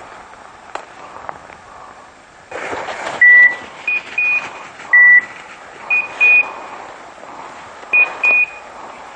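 Electronic beeper collars on hunting dogs sounding in the woods. Single longer beeps at a lower pitch alternate with quick pairs of short, slightly higher beeps every second or so, over footsteps rustling through dry leaves.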